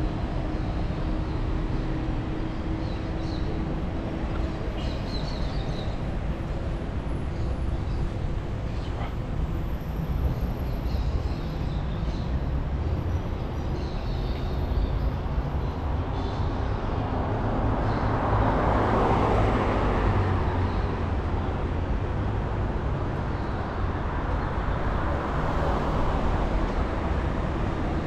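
City road traffic: a steady low rumble of vehicles, with a louder pass of a vehicle going by about two-thirds of the way through and another swell near the end.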